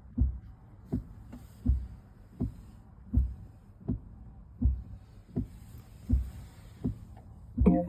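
Fisker Ocean's windscreen wipers sweeping nonstop, with a thump about every three quarters of a second as the blades reverse, running on because the car's system has hung up and they won't switch off. A short pitched tone sounds near the end.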